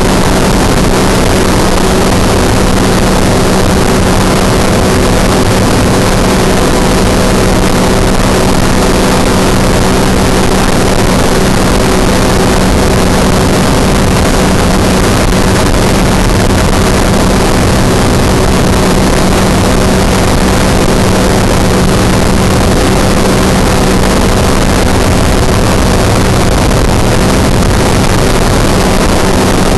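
Flexwing microlight trike in cruise flight: the engine runs with a steady hum, under a constant rush of wind in the open cockpit.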